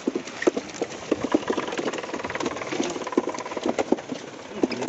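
Freshly landed fish thrashing on a wet net and deck, an irregular run of wet slaps and knocks several times a second. A faint motor hum sits underneath midway.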